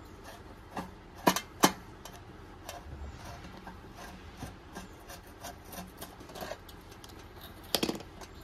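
A screwdriver turning a stuck, just-loosened screw in a rice cooker's metal base while cutting pliers grip the wire clamp under it: faint metal scraping and small ticks. Two sharp clicks come about a second and a half in, and a louder clatter near the end.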